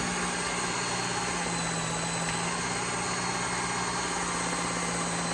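Work Sharp belt knife sharpener with the Ken Onion blade grinding attachment, its motor running steadily with a constant low hum while driving a leather stropping belt.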